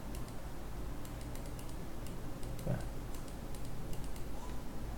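Scattered light clicks of a computer mouse as a handwritten annotation is drawn on screen, over a faint low hum.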